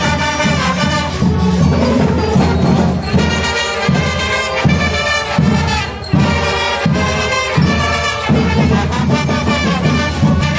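Festival brass band playing live, horns carrying the tune over a steady beat of drums and percussion.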